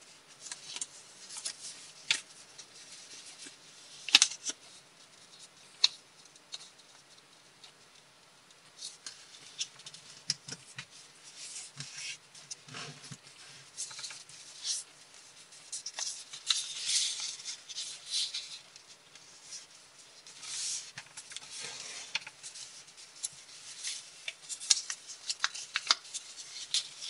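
A sheet of colored copy paper being folded and creased by hand: irregular rustling and crinkling with short sharp crackles.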